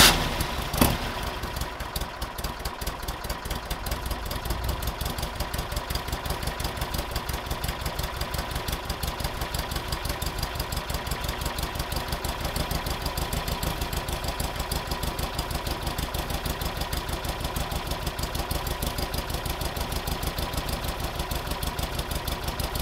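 1958 Porsche 356A's air-cooled flat-four engine idling just after a cold start, loud at first and then settling into a steady, even idle with a quick regular exhaust pulse.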